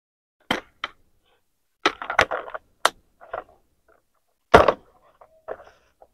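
Hard plastic pencil boxes being handled: a lid clicking shut and the boxes knocked and set down. It is an irregular series of sharp clicks and taps with a short cluster about two seconds in and the loudest knock about four and a half seconds in.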